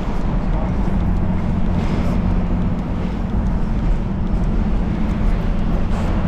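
Motorcycle engine running steadily while riding, a constant low drone with wind and road noise over it.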